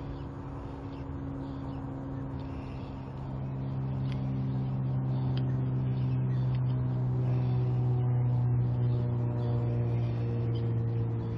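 A motor vehicle engine running with a steady low hum, growing louder through the middle and easing a little near the end.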